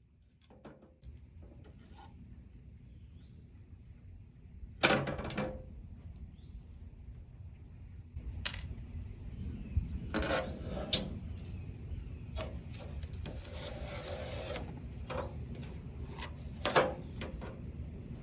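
Irregular knocks, clinks and a stretch of scraping from hand tools working on wooden baseboards as old nails are pried out. The loudest knock comes about five seconds in.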